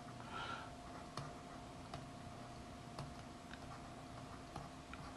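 Faint, scattered clicks of a computer keyboard being typed on, a few keystrokes spread over several seconds, over a steady low electrical hum.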